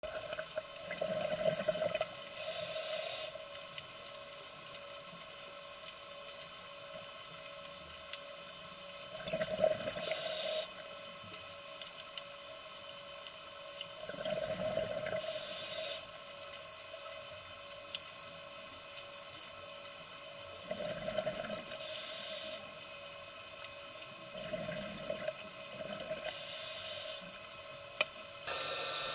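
Scuba diver breathing through a regulator underwater: about five breaths, each a bubbling rush of exhaled air followed by a short hiss of the inhale. A steady faint whine runs underneath.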